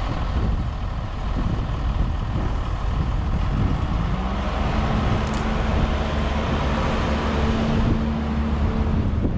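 A heavy diesel engine running under load. About four seconds in its pitch rises, then it holds steady until just before the end.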